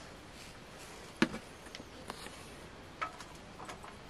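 Metal ladle clinking against a steel cooking pot and stainless steel plates while rice is served: a sharp clink about a second in, another about three seconds in, and a few faint ticks between.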